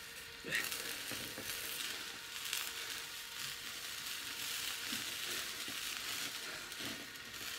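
Meat juices and marinade sizzling on a rotisserie topside of beef over a hot charcoal fire. The steady sizzle comes in about half a second in, with a few scattered pops.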